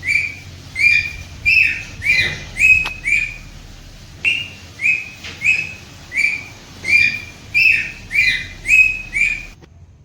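A pet parrot giving a long series of short, shrill calls, about two a second, with a brief pause partway through and stopping shortly before the end.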